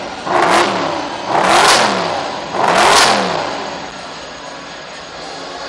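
Mercedes SLS AMG's 6.2-litre V8 blipped three times in quick succession, each rev rising sharply and falling back, then settling to a steady idle.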